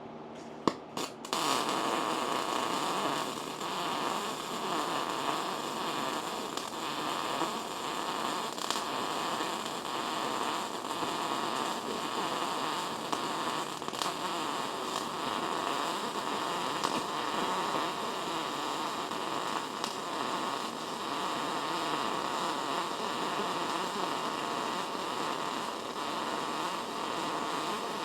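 MIG welding arc from an ArcCaptain MIG 200 with .030 wire, laying a bead along a steel shock-tower seam. It sputters in a few short starts, then settles about a second in into a steady, even crackle. It runs on a hot 120 setting that gives a fat bead with deep penetration.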